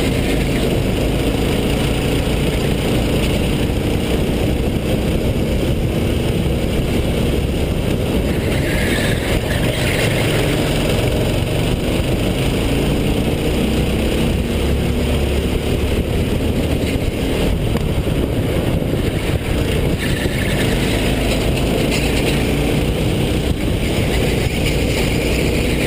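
Racing go-kart engine heard onboard, running hard the whole time. Its pitch rises as the kart speeds up on the straights and drops as it slows for the corners.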